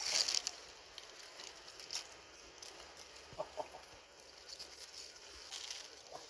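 Rustling as food is handled, loudest in the first half second, with two short clucking calls from an animal about three and a half seconds in.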